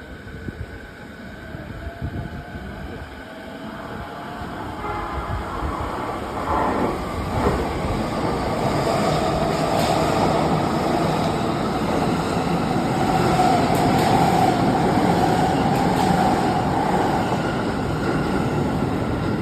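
E653-series "Fresh Hitachi" electric train approaching and running past, the rumble of wheels on rails building over the first several seconds and then staying loud, with a steady whine over it.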